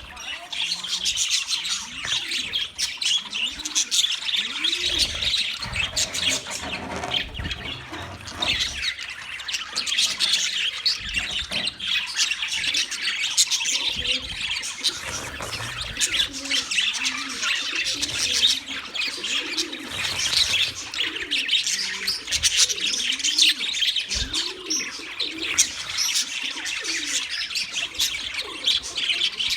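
A flock of budgerigars chattering and chirping without pause, many birds at once. Lower rising-and-falling calls recur underneath the chatter.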